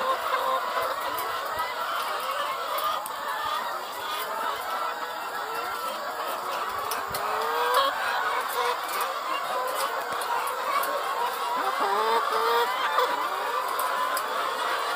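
A flock of caged brown laying hens clucking and calling over one another in a steady, dense chorus.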